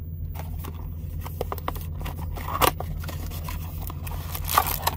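Cardboard trading-card hanger box being handled and its flap pulled open: scattered scrapes and clicks, the sharpest about two and a half seconds in and again near the end, over a steady low hum.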